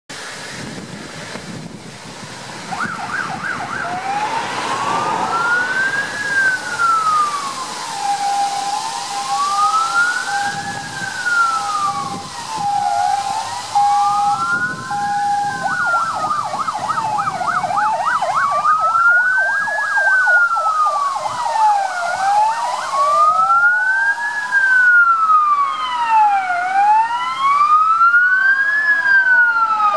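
Sirens of two MAN fire engines heading out on an emergency call: a slow rising-and-falling wail, joined about halfway by a fast warble and later by a second wail out of step with the first. They grow louder as the trucks approach.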